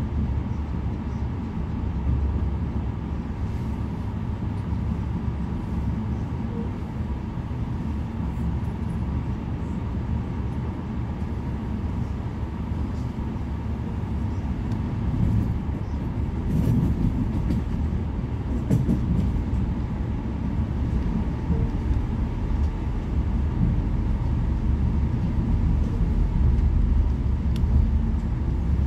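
Running noise inside a moving SNCF V2N double-deck passenger coach: a steady low rumble of the wheels on the rails, with a few brief clatters in the middle. The rumble grows slightly louder toward the end.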